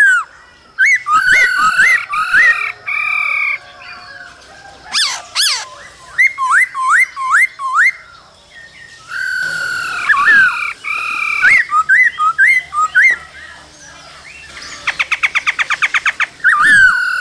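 Male black-throated laughingthrush singing loudly: varied whistled phrases, runs of quick rising notes and held whistles, broken by short pauses, with a fast rattle of about nine notes a second near the end.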